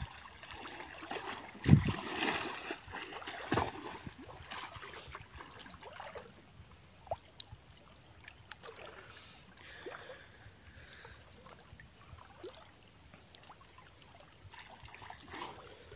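River water sloshing and splashing as a person wades and swims through it, with two heavy thumps in the first few seconds, then quieter lapping and trickling.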